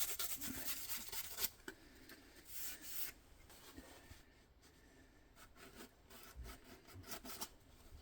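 Short, irregular scratchy rubs and scrapes on the brake-light housing as dust and dirt are cleaned out of it.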